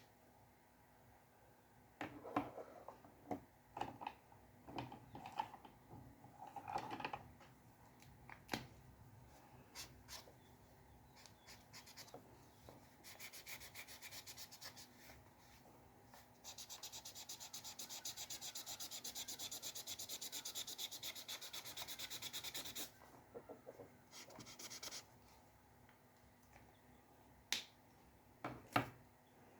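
Drawing on paper: first scattered single strokes and taps, then from about a third of the way in roughly ten seconds of fast, even back-and-forth scratching, as in rapid hatching or shading, then a few more isolated strokes and taps near the end. Faint throughout.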